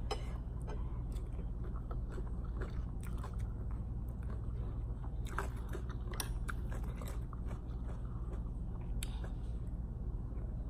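A person chewing and crunching a cucumber salad with ramen noodles, with scattered sharp clicks throughout, over a steady low hum.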